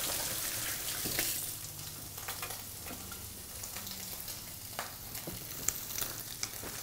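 Diced bacon sizzling steadily as it fries in a pot. Over it come soft, irregular squelches and clicks of gloved hands kneading minced-meat filling in a glass bowl.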